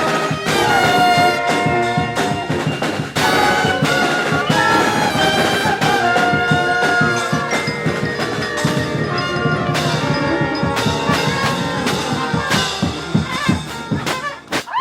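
Brass band playing live, trumpets and trombones over drums keeping a steady beat, finishing the tune with a final hit near the end.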